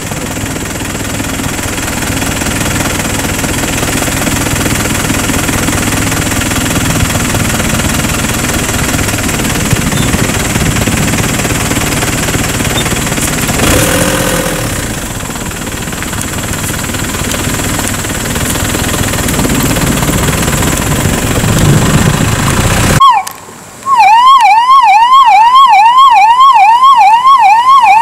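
Steady rumbling background noise with a low hum, which cuts off suddenly near the end and gives way to a loud ambulance siren in a fast yelp, sweeping up and down about two and a half times a second.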